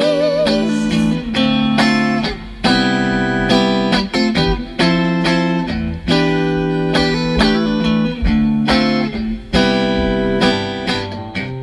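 Electric guitar strumming rhythmic chords in an instrumental break of a live band song. A singer's held note with vibrato ends just after the start.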